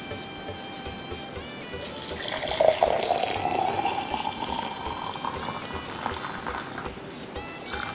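Hot thyme tea poured into a glass mug, starting about two seconds in, the pitch of the pour rising as the mug fills. Background music plays throughout.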